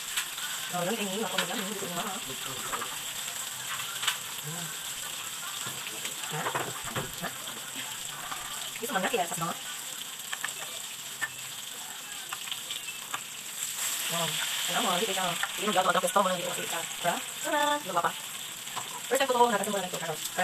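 Food frying in hot oil in a pan: a steady sizzle.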